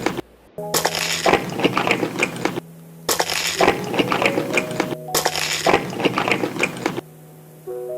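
Close-up crunching of crisp food being chewed, in three spells of about two seconds each with short pauses between, over soft background music.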